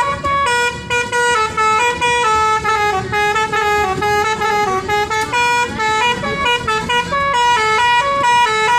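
Bus 'telolet' musical air horn playing a quick tune of short stepped notes, cutting off near the end.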